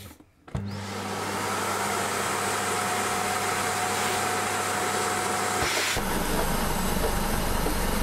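Vacuum cleaner switched on about half a second in, then running steadily with a hum and rushing air through its hose. About six seconds in its sound changes as a small globe is sucked onto the nozzle and blocks it.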